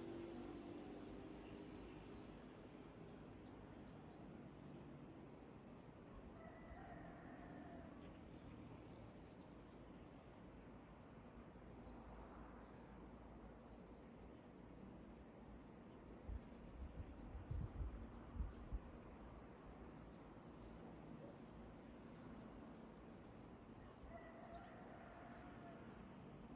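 Faint steady high-pitched cricket trill, with a couple of faint bird calls about a third of the way in and near the end. A cluster of low bumps on the microphone a little past halfway.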